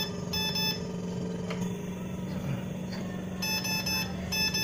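Chirana Venar Libera ventilator alarm beeping in groups of short high tones with pauses between, over a steady low hum. On first use the ventilator goes straight into its overpressure alarm.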